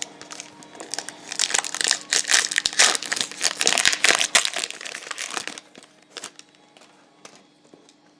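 A trading card pack wrapper being torn open and crinkled, a dense crackling from about a second in to about five and a half seconds, then a few light clicks.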